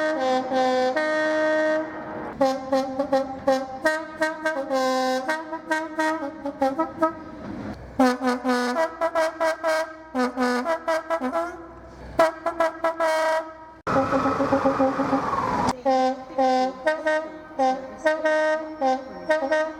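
A train's two-tone air horn sounded in a long, rapid run of short toots that switch back and forth between a low and a high note, with a brief rush of noise and a falling tone about fourteen seconds in.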